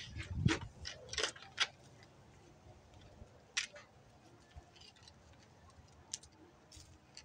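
A run of short, sharp clicks and scrapes close together in the first two seconds, then a few scattered single clicks over a faint background.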